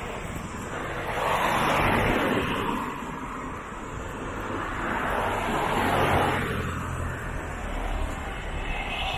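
Two cars passing on the road one after the other, each a swell of tyre and engine noise that rises and fades away, over a steady low rumble of traffic.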